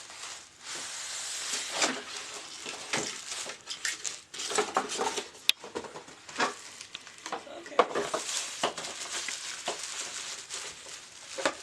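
Crinkling and rustling of packaging being handled during unboxing, with scattered small clicks and knocks of the item and box.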